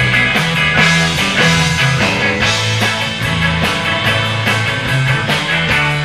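Instrumental surf rock band playing live: a fuzz-toned lead on a Mosrite electric guitar through a BOSS FZ-2 fuzz pedal over rhythm guitar, bass and drums keeping a steady driving beat.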